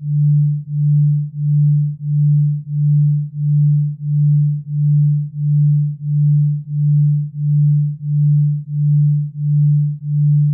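Electronically generated low sine tone pulsing evenly about one and a half times a second: a delta-wave sound track meant for sleep and recovery.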